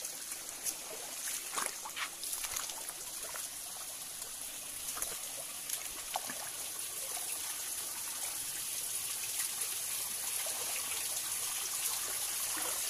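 Shallow stream trickling over rocks, growing slowly louder toward the end. A few light knocks of footsteps on the stones come mostly in the first few seconds.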